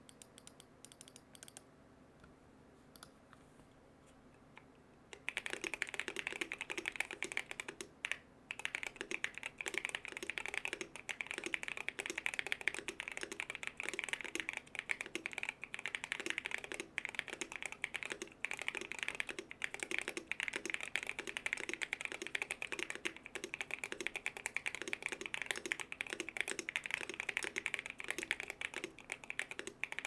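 Steady typing on a Keychron Q1 aluminium mechanical keyboard with Kinetic Labs Salmon tactile switches, a dense run of deep-sounding key clacks. It starts about five seconds in, after a near-quiet stretch with a few faint clicks, and pauses briefly a few seconds after starting.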